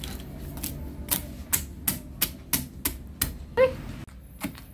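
Sharp knocks repeating about three times a second in a steady rhythm, from food being cut up or pounded in the kitchen, with a brief pitched squeak in the middle of them.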